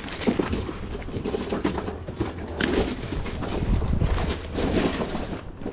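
Wind buffeting the microphone with a low rumble, under repeated clicks and rustles of hard plastic card holders and sleeves being shuffled through by hand.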